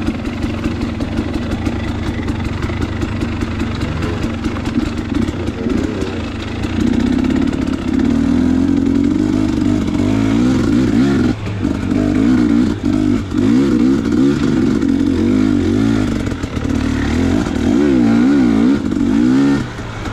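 Two-stroke dirt bike engine of a 2019 KTM 250 XC under way, its revs rising and falling constantly with the throttle. It gets louder about seven seconds in, with a few brief drops off the throttle.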